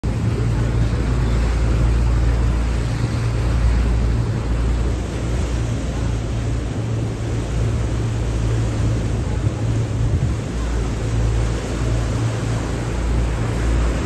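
A boat's engine running steadily with a low hum, over the wash of sea water.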